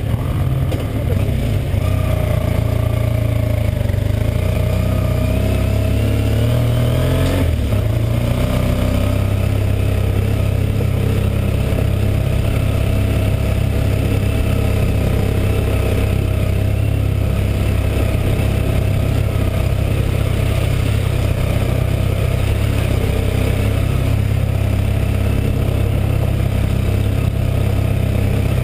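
Motorcycle engine pulling uphill on a gravel road, heard from on the bike: revs climb for the first several seconds, drop sharply about seven seconds in, then the engine runs steadily.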